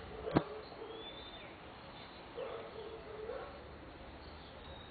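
A bird calling in the background with repeated low notes, some rising at the end, and a fainter high whistle about a second in. A single sharp click about half a second in is the loudest sound.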